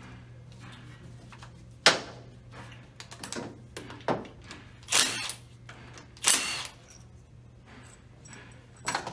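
A cordless power tool run in several short bursts to undo the gear-selector nut on the selector shaft, with a sharp metal clack about two seconds in.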